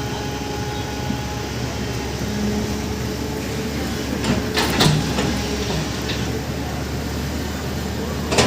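Excavator diesel engine running steadily, with a brief clatter about four and a half seconds in.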